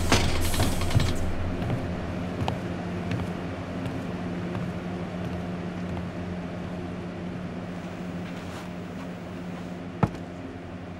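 A steady low hum with a few held pitches. It starts under the tail of a loud rushing noise that dies away over the first two seconds. A few faint clicks follow, then a single sharp click about ten seconds in.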